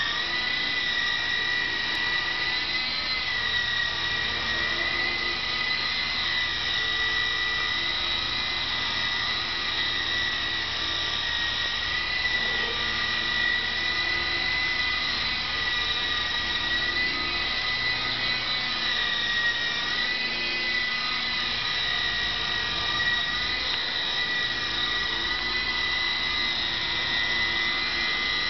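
Electric motors and rotors of a Lama V3 coaxial RC helicopter running with a steady high whine that wavers slightly in pitch.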